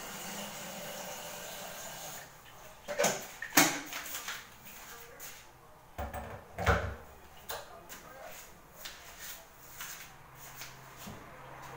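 Kitchen handling clatter: a series of sharp knocks and clicks, the loudest about three and a half seconds in, a dull thump around six to seven seconds in, then lighter taps, like cupboards, drawers and cookware being handled.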